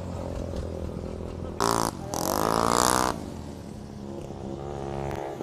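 Low engine rumble of a passing truck. About a second and a half in, a motorcycle engine revs hard in two loud bursts with a short break between them, rising in pitch through the second burst.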